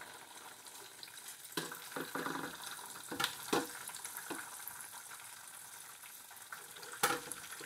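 Breaded zucchini slices frying in a pan of hot oil: a steady bubbling, crackling sizzle, with a few short clicks as tongs work the slices.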